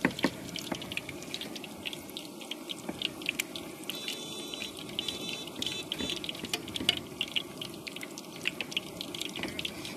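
Mughlai parathas frying in hot oil in a large karai: the oil sizzles with many fine crackles and pops. A few short high-pitched beeps sound about four to six seconds in.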